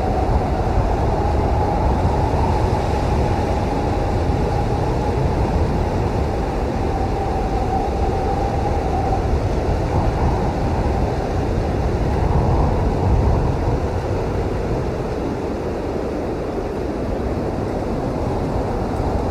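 Blizzard wind blowing steadily with a deep rumble and a wavering, whistling howl on top that fades for a few seconds in the middle.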